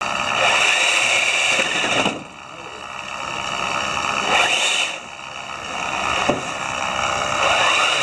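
Electric motors spinning a robot gripper's intake wheels, a steady high whine that cuts out about two seconds in and again near five seconds, each time winding back up. A sharp knock a little after six seconds.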